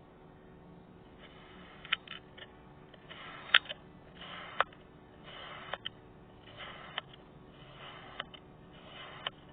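Slime being squished and pressed by hand: a series of soft squishing noises, each about half a second long, with sharp clicking pops among them, the loudest about three and a half seconds in.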